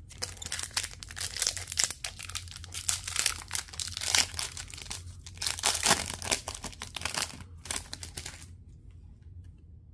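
Crinkling and tearing of a shiny foil hockey-card pack wrapper pulled open by hand, a dense crackle that stops about eight and a half seconds in.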